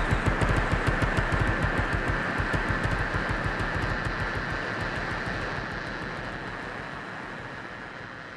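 Electronic music made from processed voice: a fast, even low pulse under a noisy hiss, fading out steadily to the end of the track.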